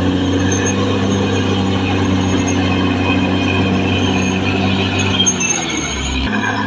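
Caterpillar D6R XL bulldozer's diesel engine running steadily, with the rattle of its tracks and running gear over it. The engine note shifts about five and a half seconds in and changes abruptly near the end.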